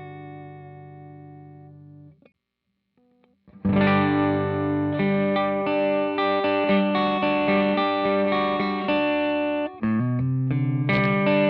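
Electric guitar played through a Cort x Moollon CMV15 amp, miked with a Shure SM57. A wavering chord rings out and fades, there is a brief gap about two seconds in, and then a loud passage of chords and single notes begins at about three and a half seconds.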